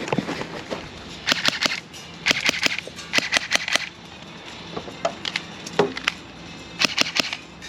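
Airsoft gas blowback pistol fired in quick strings of three to five shots, four strings in all with a pause of about three seconds before the last.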